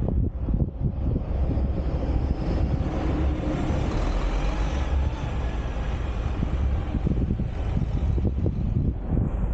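A coach bus passes close by and pulls away, its engine and tyre noise swelling and then fading, over a steady low wind rumble on the microphone.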